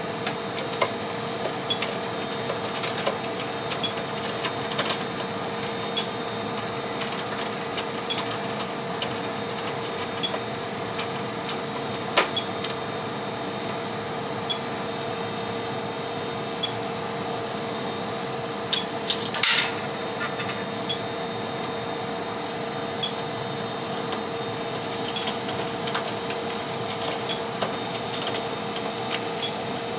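Light clicks and knocks of screws being fastened into a rackmount UPS, with a sharp click about 12 seconds in and a short clatter near 20 seconds, over a steady background hum.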